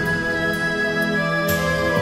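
Instrumental background music: slow held chords with soft taps about every half second, the low notes changing about one and a half seconds in.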